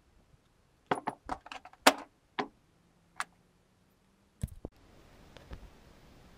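Scissors snipping and handling a sheet of rubber gasket material: a quick run of sharp clicks and snips in the first two and a half seconds and one more a little later, then a couple of dull knocks about four and a half seconds in.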